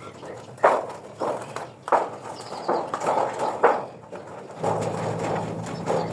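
Hand shears cutting a thin metal sheet: a series of sharp snips, roughly one every half second to second. A low steady hum comes in near the end.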